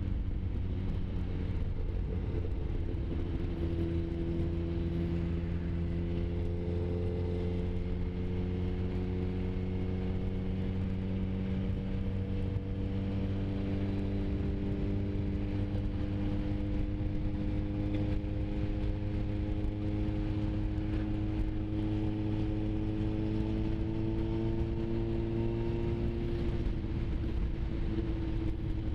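A sport motorcycle's engine running at road speed, heard from the rider's position with wind rush. Its pitch climbs slowly and steadily as the bike gathers speed, then drops back a little near the end.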